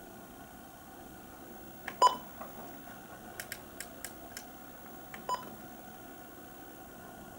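Two short electronic beeps at the same pitch, about three seconds apart, with a handful of light clicks between them, over a faint steady hum.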